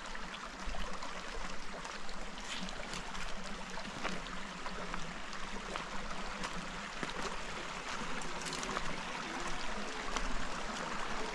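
Shallow creek water running over stones, with scattered crunching steps on gravel.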